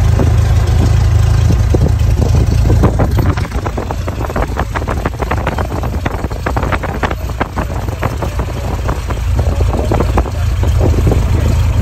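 Cessna 172SP's four-cylinder Lycoming engine running at low taxi power, heard inside the cabin as a loud, steady low drone. About three seconds in it eases off slightly, and a run of quick clicks and rattles comes through for several seconds.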